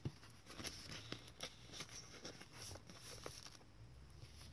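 Faint paper rustling with scattered light taps and clicks as card tags and tea-stained journal pages are handled.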